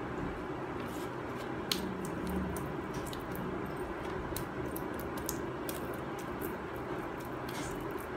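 Wet multani mitti (fuller's earth) paste being squeezed and kneaded by hand in a plastic bowl: irregular short squelches over a steady background hum.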